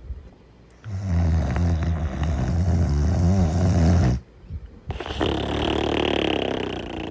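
Loud snoring of a sleeping character. A low buzzing snore starts about a second in and lasts some three seconds, then there is a short break and a breathier, higher-pitched breath to the next snore.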